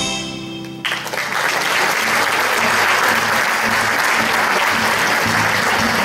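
The last chord of an acoustic folk ensemble (guitar, cello, violin, accordion) fades out, and just under a second in audience applause breaks out and carries on steadily.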